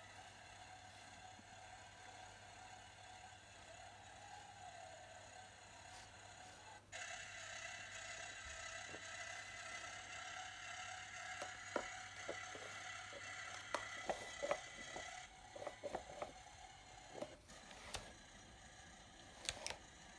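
Small electric motor of a toy car whining steadily, louder from about a third of the way in until past the middle, with light clicks and taps of plastic near the middle and again near the end.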